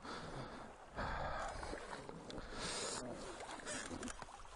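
Shallow stream water splashing and rushing in uneven surges, with the dirt bike's engine stalled and silent.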